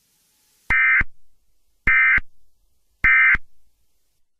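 Emergency Alert System end-of-message signal: three short, identical bursts of SAME digital data tones, a little over a second apart, marking the end of the alert.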